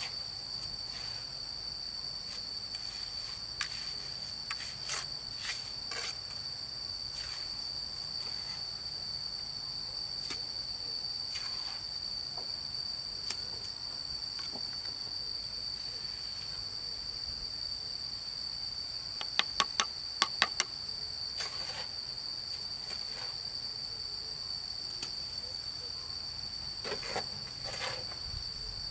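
Steady high-pitched insect drone, with scattered knocks and scrapes of a steel trowel and stones being set in mortar. About two-thirds of the way through comes a quick run of sharp taps, the loudest sounds.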